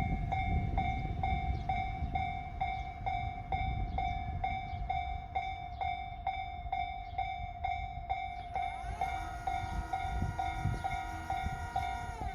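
Japanese railway level-crossing warning bell ringing in quick, even strikes, over a low rumble. About nine seconds in, a train horn sounds for about three and a half seconds, rising into pitch as it starts and sagging as it stops: a departing diesel train, here the JR Shikoku 2600-series express, sounding its horn.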